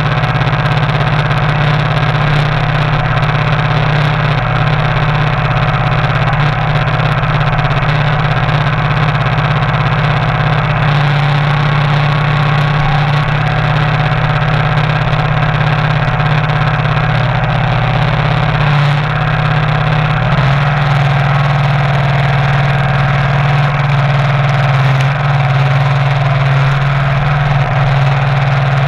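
Compact tractor engine running steadily while the tractor drives along a dirt track, heard close from the operator's position. The engine note shifts slightly about twenty seconds in.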